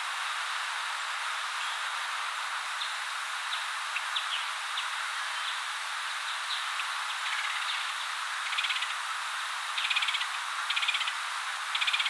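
Red-headed woodpecker nestling calling from its nest cavity over a steady outdoor hiss. There are a few faint short notes at first, then from about two-thirds of the way in come several short, rapid buzzy rattles about a second apart, typical of begging.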